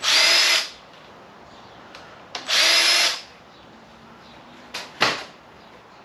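Handheld power tool's motor whirring in two short bursts, each under a second and about two seconds apart, then a brief sharper burst near the end. It is spinning fasteners out of a 6.0 L LS V8 being torn down to pull its pistons.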